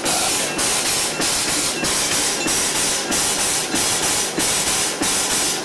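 Steam hissing from the open cylinder drain cocks of a steam tank locomotive, in a rhythmic pulsing blast of about three pulses every two seconds.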